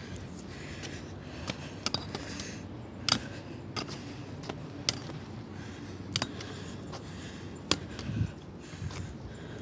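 Footsteps of a hiker climbing stone trail steps: irregular sharp taps and scuffs, roughly one every half second to a second, over a low steady background.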